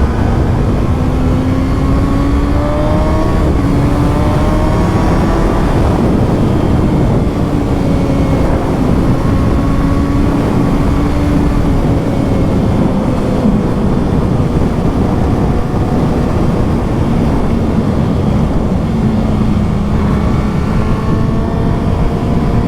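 Stock-exhaust 2020 Kawasaki ZX-6R inline-four running at steady road speed, its note rising and falling gently as the throttle varies. A heavy low rushing noise runs under the engine.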